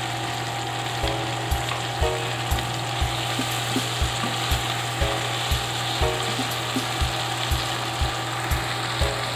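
Food sizzling steadily in hot oil in a pan. Background music with a steady beat about twice a second plays over it.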